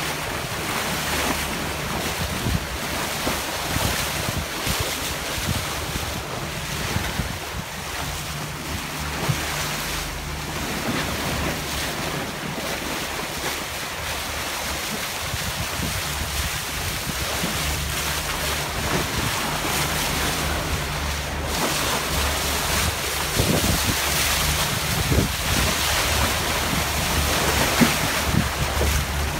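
Sea water rushing and splashing against a sailing catamaran's bow as it moves through the water, with wind buffeting the microphone in a low rumble. The sound is a steady wash that grows slightly louder in the second half.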